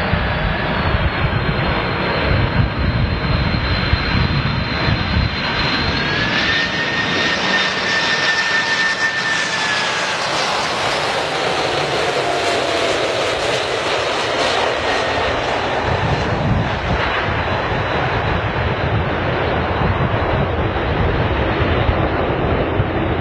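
Boeing 747's four jet engines whining and rumbling as the airliner comes in to land and passes close by. The whine drops in pitch as it goes past, and the jet noise is fullest around the middle, at touchdown.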